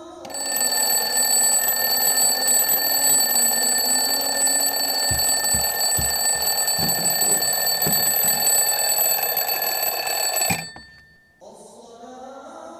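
An alarm ringing loudly and continuously for about ten seconds, then cutting off abruptly.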